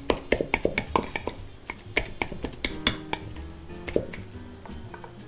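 Potato masher knocking and clinking against a stainless steel mixing bowl while baked yams are mashed, in quick irregular strikes several times a second.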